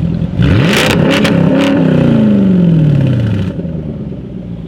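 Jaguar F-Type R's supercharged V8 with a straight-piped Larini exhaust revving hard: the pitch shoots up, with a burst of sharp exhaust crackles and bangs. The engine note then falls steadily for about two seconds and fades.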